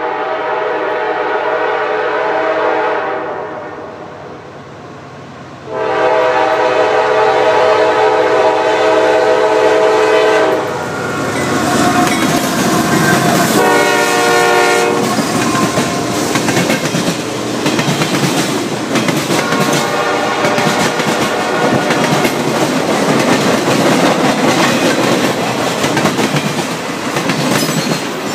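CSX GE diesel freight locomotives (an AC4400CW and an ES44AC) sound a multi-chime air horn in the grade-crossing pattern as they approach: two long blasts, a short one, then another long one. Partway through, the locomotives' diesel engines pass close by, followed by the freight cars' wheels clacking steadily over the rail joints.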